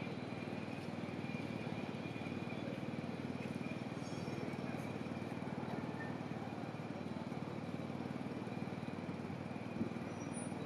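Steady low rumble of city street traffic and trams running on the street-level tram tracks, with no distinct single events.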